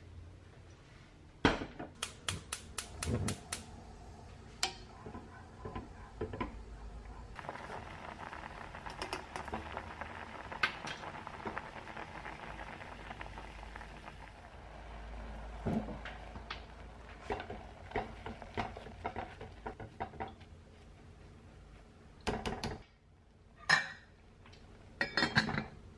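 Kitchen work sounds: dishes and utensils clinking and knocking, with a quick run of taps about a second and a half in and a few sharp knocks near the end.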